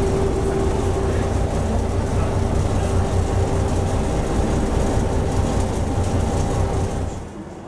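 Steady low rumble and hum of a large passenger ship's engines and machinery, heard inside the cabin; it drops away sharply near the end.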